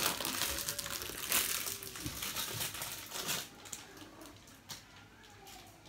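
Thin plastic wrapper crinkling as it is handled and pulled at, stopping about three and a half seconds in.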